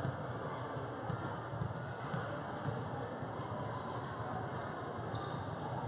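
Busy gymnasium ambience: a steady murmur of crowd chatter in a large echoing hall, with occasional basketball bounces on the hardwood court.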